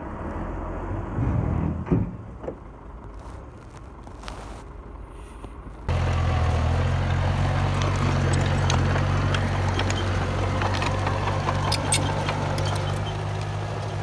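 Komatsu D31P bulldozer working with its diesel engine running. For the first six seconds it is quieter and muffled, with a few knocks. Then it switches abruptly to a louder, steady engine drone with scattered clanks and crackles.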